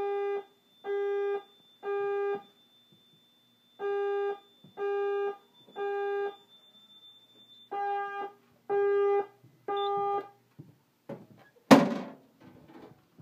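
Fire alarm horn sounding the temporal-three evacuation pattern: three groups of three short, steady horn blasts, with a faint high steady whine under the first two groups. The horn stops after the third group, and a loud single thump follows near the end.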